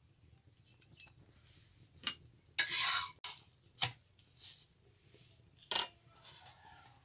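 Metal spatula scraping and clinking against a tawa as a paratha is turned: a sharp clink about two seconds in, a loud scrape just after, then two more clinks.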